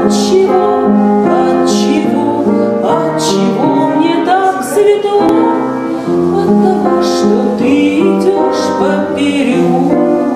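A woman singing a melody in full voice, with long held notes, accompanied by piano.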